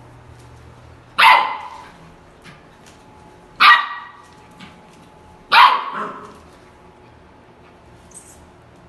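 Samoyed puppy barking three times, about two seconds apart, each bark short and sharp with a quick fade.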